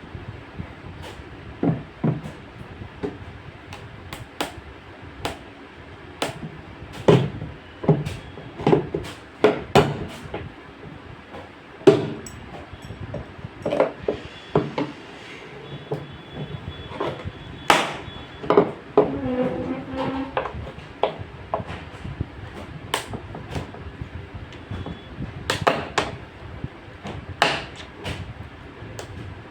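Irregular knocks and clunks of hand work on washing machine parts, some struck sharply as with a hammer, with a short squeak about twenty seconds in.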